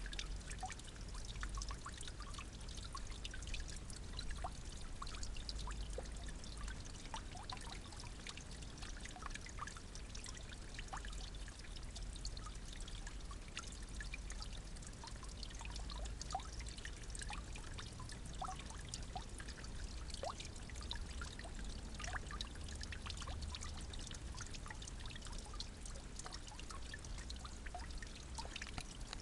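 Water trickling and pouring steadily, with many small drips and splashes ticking through it.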